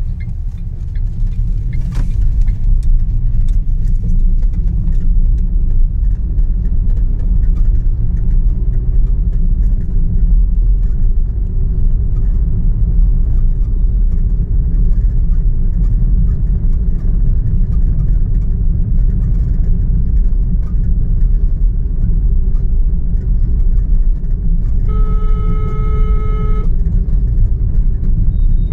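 Steady low rumble of a moving vehicle driving along a road. Near the end a horn sounds for about a second and a half, then briefly again.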